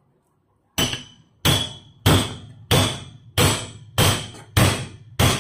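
A brass pestle hammering the spine of a cleaver to drive it through a tough fish head on a wooden chopping board: eight hard strikes, about one and a half a second, starting about a second in, each with a brief metallic ring.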